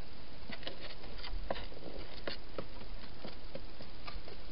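A hedgehog eating and moving about inside a plastic feeding station: a run of irregular sharp clicks and crunches over a steady hiss.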